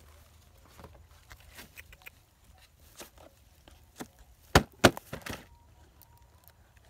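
Red plastic latches of a plastic jigsaw carrying case being pried open: faint handling taps, then two sharp clicks in quick succession about halfway through as the latches snap free.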